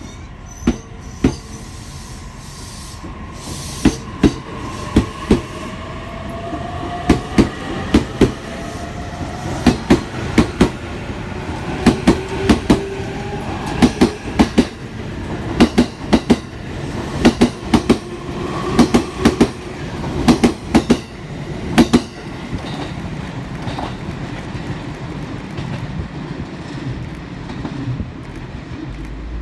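E657 series limited express electric train pulling out and picking up speed. Its traction motors give a rising whine, and its wheels clack over the rail joints in pairs that come closer and closer together as the cars pass. The clacking stops about three-quarters of the way through, leaving a rumble that fades as the train moves off.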